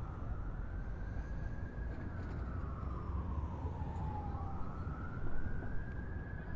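A siren wailing, its pitch slowly rising and falling and peaking twice, over a steady low rumble.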